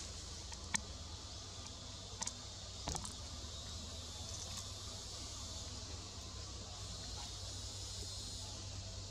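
Steady high-pitched insect chorus, with a low hum underneath and three short sharp snaps about one, two and three seconds in.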